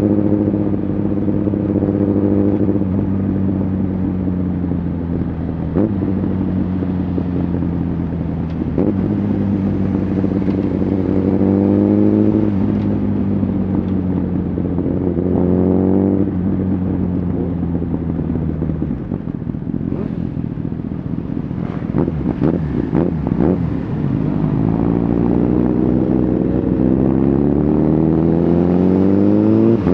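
Honda CBR1000RR Fireblade's inline-four engine with an aftermarket Shark Factory exhaust, ridden under way and heard from the rider's seat. It runs steadily, then rises in pitch a few times as the throttle is opened. It eases off about two-thirds of the way in, with a few sharp knocks, then climbs in one long steady rise near the end.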